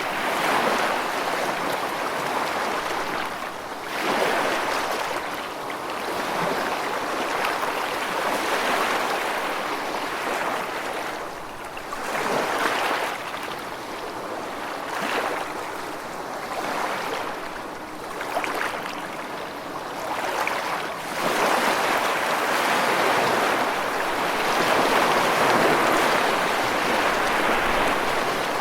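Gentle waves washing onto a sandy beach, the wash swelling and ebbing every few seconds, fuller near the end.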